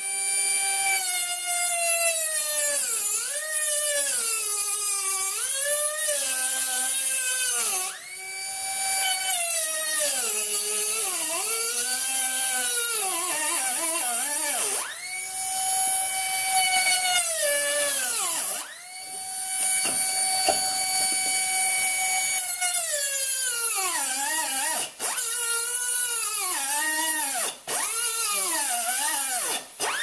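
Pneumatic die grinder with a small cutting disc spinning at high speed: a high whine whose pitch sags and recovers repeatedly as the disc bites into and comes off the rim of a steel tin can, cutting away its lip. The whine drops out briefly a few times near the end.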